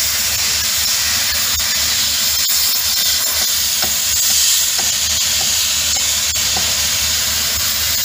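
Concrete pump trucks and a transit mixer running during a concrete pour: a steady, even hiss of machinery noise with a low engine hum underneath and a few faint clicks.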